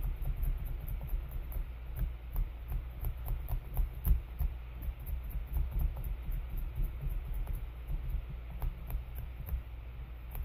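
Foam sponge dabbing acrylic paint onto a stencilled canvas: repeated soft taps, several a second and irregular, over a low rumble.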